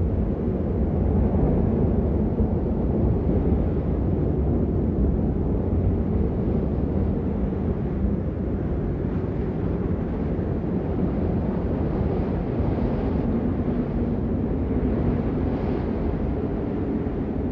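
Steady, dense low roar of a storm, with wind buffeting the microphone, with no separate impacts standing out.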